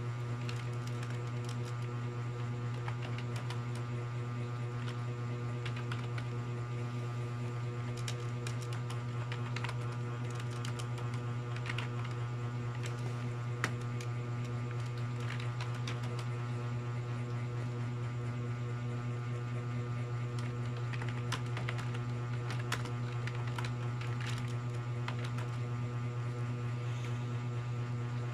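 Keys being typed at an irregular pace, short clicks over a loud steady electrical hum.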